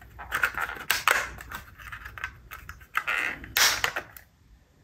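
Plastic clicks, creaks and short scraping crackles as a Bachmann HO F7 locomotive's plastic body shell is forced down over its chassis and crammed wiring. The loudest cracks come about three to four seconds in, and they sound a bit breaky.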